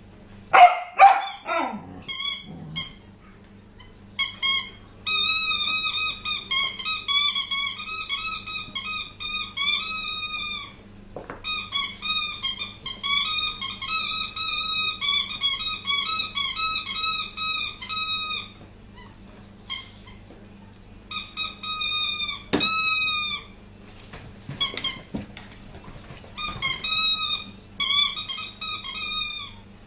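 A dog chewing a squeaky plush toy: rapid, high-pitched squeaks, several a second, in runs of a few seconds with short pauses between. A brief falling sound comes near the start.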